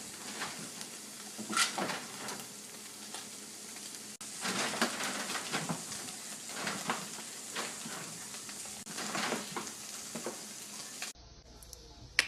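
Two cats batting and pawing at a glass door from either side: irregular taps and scrapes of paws on the glass over a steady crackling hiss. The sound drops to a quieter hiss near the end.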